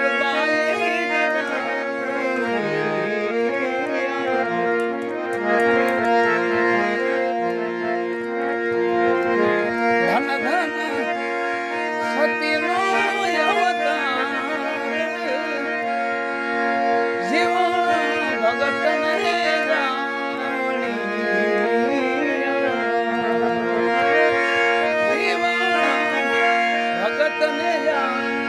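Harmonium playing a devotional bhajan melody over held drone notes.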